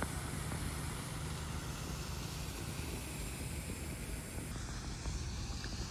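Steady low outdoor rumble with no distinct events: open-air ambience of wind and distant traffic picked up by a phone microphone.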